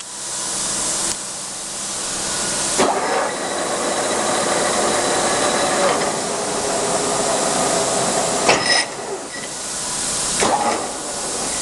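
16D25 screw-cutting lathe running, a steady mechanical hiss and gear whine. A sharp clunk comes about three seconds in, where the running sound changes, and two more come later.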